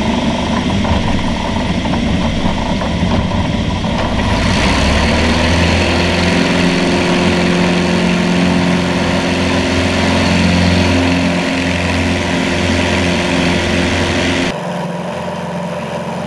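Super Cub light aircraft's piston engine and propeller running steadily under wind rush. About four seconds in, the engine comes up in power and drones with a strong steady pitch; near the end the sound changes abruptly and drops in level.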